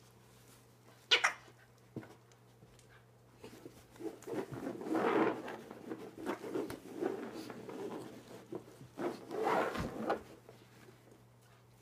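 Alaskan Klee Kai play-growling while tugging on a plush toy, in two rough bouts, with a short sharp sound about a second in.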